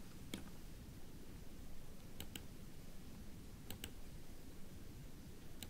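Quiet clicks of a computer mouse: a single click, then a few close double clicks, over faint low room noise.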